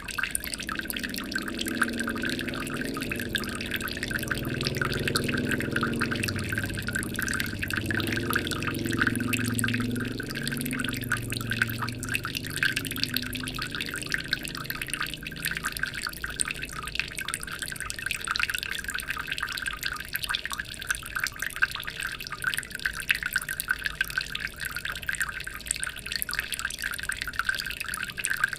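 Water trickling and splashing steadily into a fish pond or natural aquarium, a dense, even patter of falling water. A faint low rumble sits under it through the first half and fades away.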